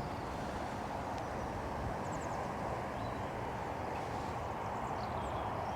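Outdoor woodland ambience: a steady low rumble and hiss, with a few faint, brief bird chirps now and then.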